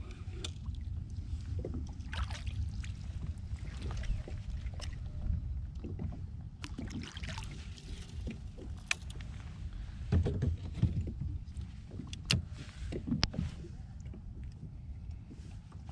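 Fishing kayak on the water: a steady low rumble of water against the hull, with scattered clicks and knocks from the boat and its gear, the loudest few coming about ten to thirteen seconds in.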